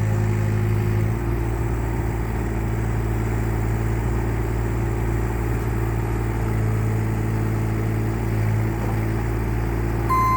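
Yanmar diesel engine of a Takeuchi TB216 mini excavator running steadily. A steady high beep starts just before the end.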